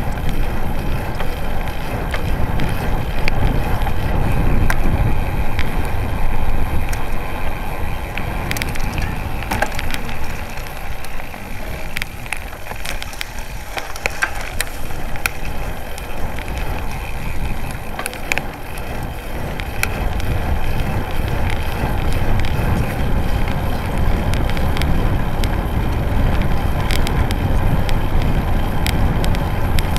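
Road bike rolling over rough, debris-strewn asphalt: tyre rumble and wind buffeting the bike-mounted camera's microphone, with scattered small clicks and rattles. The low rumble eases for a few seconds in the middle.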